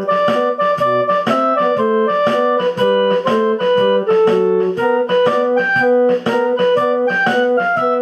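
Background music: a brisk tune on an electronic keyboard, with piano- and organ-like notes changing on a quick, even beat.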